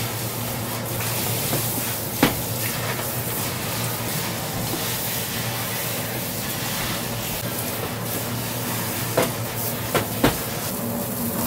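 Steady kitchen ventilation noise with a low hum, broken by a few sharp knocks of a wooden rolling pin and pasta dough on a stainless steel worktop, once about two seconds in and three times near the end.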